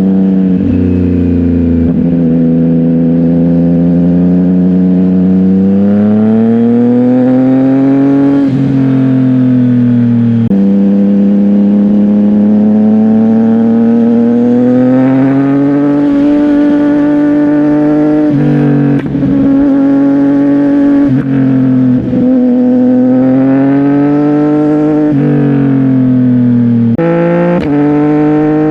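CFMOTO 675NK's inline-three engine through a titanium full-system exhaust, the bike accelerating hard through the gears. The engine note climbs in pitch, then drops sharply at each of several upshifts.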